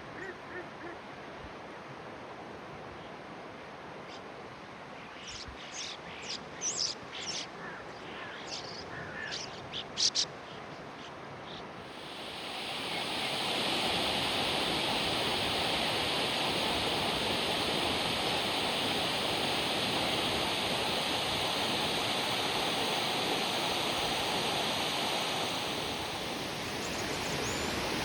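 Steady rush of running water, with a cluster of short high-pitched chirps or ticks about five to ten seconds in. About twelve seconds in the rush swells to a louder, hissier sound that then stays steady.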